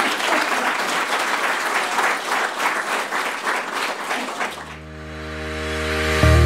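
Audience applauding. The applause stops about four and a half seconds in, and music with long held low notes fades in and grows louder.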